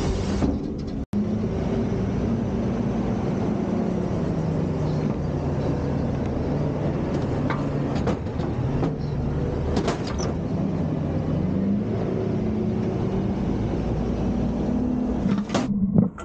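Front-loader garbage truck's engine running steadily under hydraulic load as the forks lift a dumpster, its pitch dropping for a while and then climbing again near the end. A few sharp knocks come partway through, and a loud rough clatter near the end as the dumpster tips and trash starts falling into the hopper.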